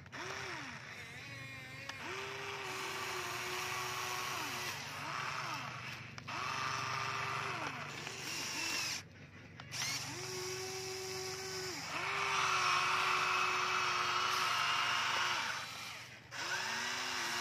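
Huina remote-control toy excavator's electric motors whining in short runs as the arm and bucket move, each run rising in pitch as the motor spins up, holding steady, then falling as it stops, with gear noise over it. The runs follow one another with three brief pauses.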